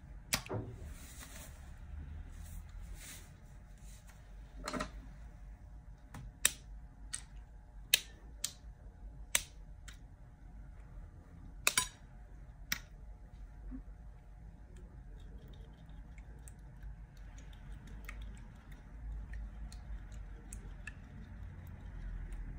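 Small pieces of makeup dropped into a glass baking dish, making a series of sharp clicks and taps on the glass, about a dozen spread over the first half, with soft rustling and handling after that.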